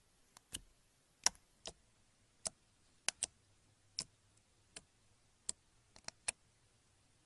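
Clear slime being pressed and poked with a fingertip, giving about a dozen sharp clicky pops at irregular intervals.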